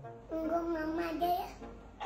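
A voice holding one long sung note for about a second, steady in pitch and rising slightly at the end, over faint background music.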